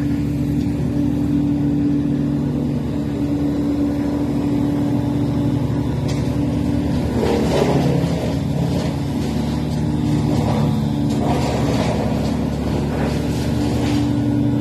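Tree mulching machine (wood chipper) running with a steady engine drone, swelling a little louder a couple of times.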